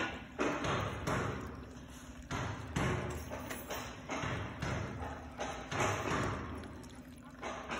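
Hammer blows at irregular intervals, roughly one every half second to a second, each a sharp knock with a short ringing tail.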